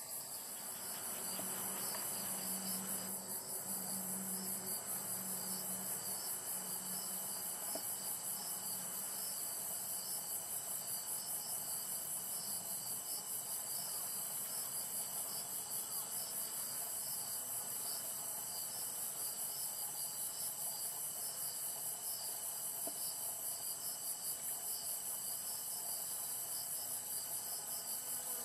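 Chorus of singing insects: a steady, very high-pitched trill with a fast, even pulse.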